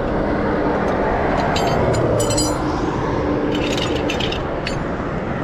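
Metal wheel-changing tools, a car jack and wheel spanner, clinking and ringing as they are handled, in two short clusters of clinks over a steady background rush.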